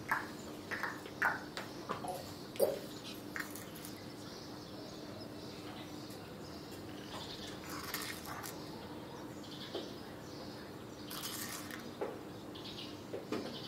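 Hands working dry flour in a stainless steel mixing bowl: soft rustling and a few light clicks, over a faint steady hum.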